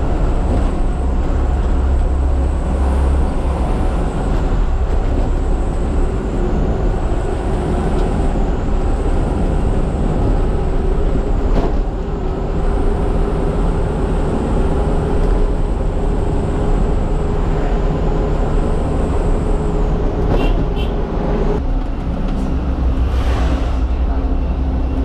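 A heavy engine running with a steady low drone.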